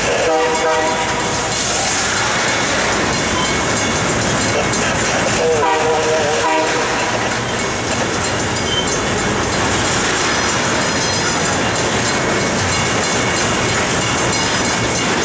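Diesel locomotive horn sounding two blasts, one at the start and one about six seconds in, over the steady rumble and wheel clatter of a loaded freight train rolling past.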